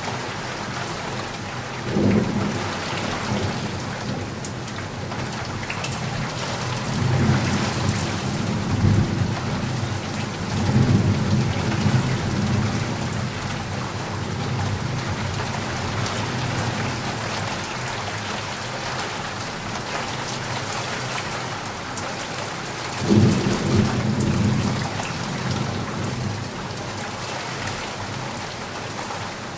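Steady heavy rain with rolls of thunder: a rumble about two seconds in, a longer rolling peal from about seven to thirteen seconds, and another loud rumble near the end.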